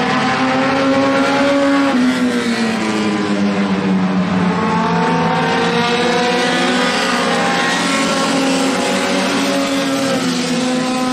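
Several four-cylinder dirt-track race cars running together, their engines overlapping and rising and falling in pitch as they accelerate and back off around the oval.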